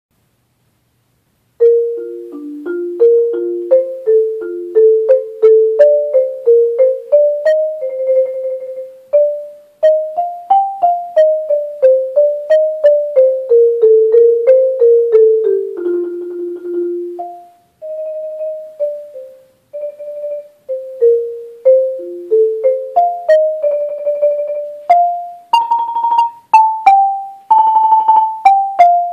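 Marimba played with two yarn mallets, starting about a second and a half in: quick single notes in stepwise runs up and down, with rolled notes held a few times, including a long low roll about halfway and higher rolls near the end.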